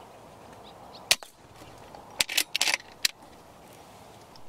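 A loud sharp snap about a second in, then a quick run of four or five sharp clicks between about two and three seconds in, over a faint steady background hiss.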